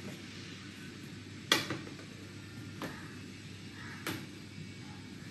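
A few light knocks and clicks of a laptop being handled and its lid opened, the sharpest about a second and a half in, with two softer ones after it, over faint room tone.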